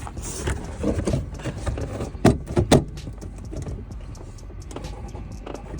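A plastic taillight housing knocking and clicking against the car body as it is pushed into place and lined up, with two sharp knocks about half a second apart in the middle: the housing is catching on something and won't seat.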